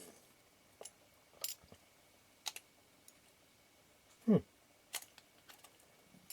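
Small clicks and taps of metal lens parts being handled and fitted during reassembly of a camera lens's helicoid and aperture mechanism, a few scattered ticks spread through. About four seconds in comes one short, louder sound that falls in pitch.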